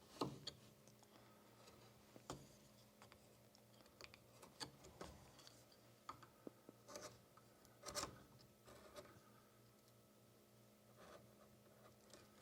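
Faint, short scraping cuts of a small No. 11 veiner gouge carving fine lines into wood: a dozen or so separate strokes, each a brief scratch.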